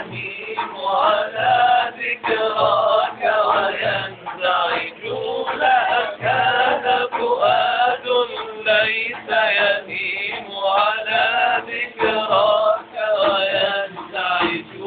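An Arabic devotional nasheed sung by male voices in a wavering, ornamented melody, with a hand-held frame drum beating soft low thuds under the singing.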